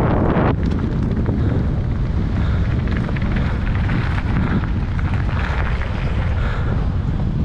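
Steady, loud rumble of wind buffeting the camera microphone as a mountain bike runs down a rough enduro trail.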